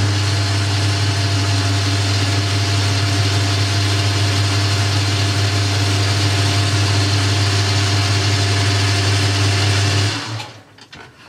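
Boxford metal lathe running under power with a loud, steady motor hum while a tool bit cuts a chamfer on the end of a small turned spigot; it is switched off about ten seconds in and runs down.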